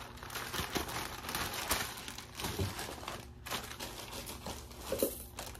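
Packaging crinkling and rustling in irregular crackles as a package is opened and its contents handled, with a brief lull about three and a half seconds in.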